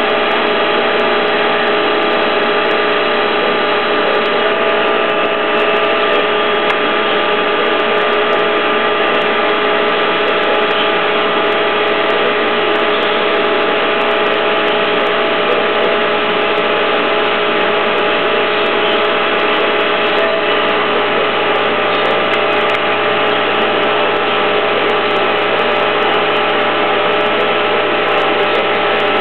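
YJ2000 hydraulic pipe and tube bender running steadily: a continuous motor-driven hum with several steady tones, unchanged throughout.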